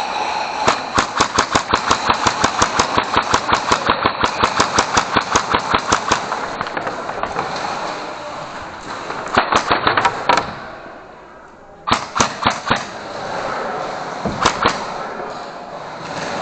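Airsoft gun firing on full auto: a long even string of sharp shots, about six or seven a second, for some five seconds, then several short bursts later on.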